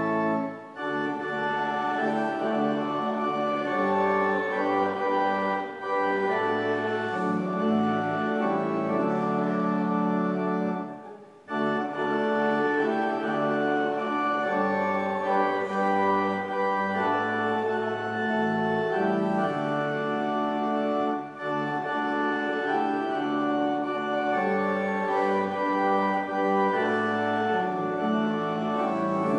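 Church organ playing a hymn in slow, sustained chords, with short breaks between the lines.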